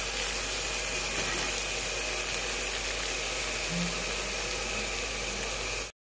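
Potato and meatball stir-fry sizzling in a pan while a spatula stirs and scrapes it, with light clicks; the sauce has cooked down. The sound cuts off suddenly near the end.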